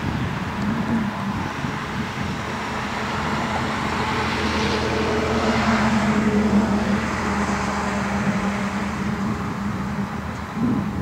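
A motor vehicle going past: a steady engine hum under a broad rush of noise that swells to a peak about halfway through and then fades away.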